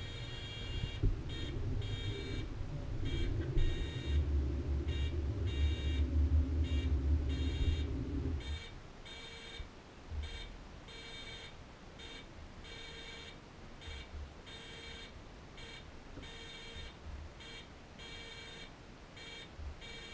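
Electronic warning beeper at a cable car station, sounding in short, irregular high pulses, about one or two a second. Under it the low hum of the cable car machinery runs, then stops about eight seconds in while the beeping goes on.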